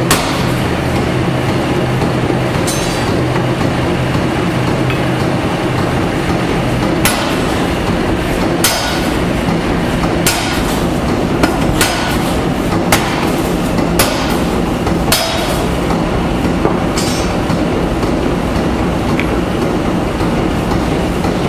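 Massey power hammer running with a steady mechanical hum, striking a large red-hot steel bar with sharp blows at uneven intervals, about a dozen in all.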